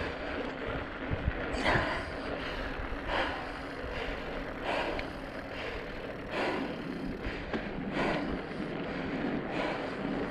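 Steady wind and road noise on a bicycle ride, with the rider breathing hard in regular swells about every second and a half.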